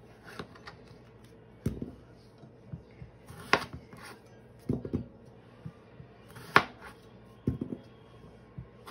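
Kitchen knife halving fingerling potatoes on a plastic cutting board: irregular knocks of the blade meeting the board, some sharp and some duller, about one every second or two.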